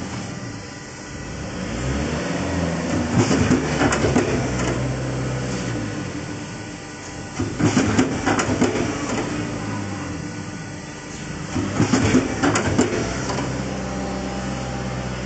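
Plywood core veneer patching machine running with a steady hum, broken by three bursts of rapid clattering and knocking about four seconds apart as it works through its cycles.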